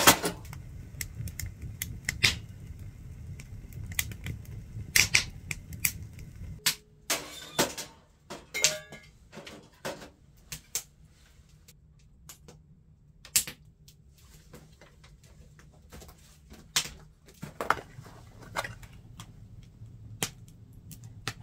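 Firewood crackling and popping in a wood stove, with irregular sharp clicks and knocks, some from a metal mess tin being handled. A low rumble underlies the first six seconds or so, then stops.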